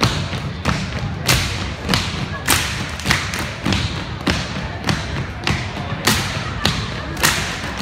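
A step team's stomps and claps on a hardwood gym floor, sharp hits in a steady beat of just under two a second, with voices underneath.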